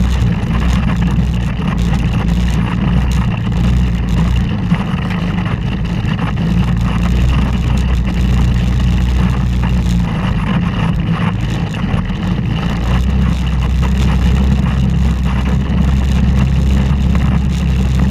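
Polaris Ranger side-by-side UTV engine running steadily as it drives over a rough, rocky dirt trail. The engine eases off in the middle and picks up again about two-thirds in, with scattered knocks from the machine jolting over the ground.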